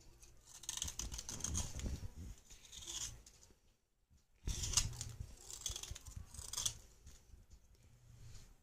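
Kitchen knife blade scraping the surface of a hard red clay bar in quick, scratchy strokes, in two runs with a short pause about halfway through.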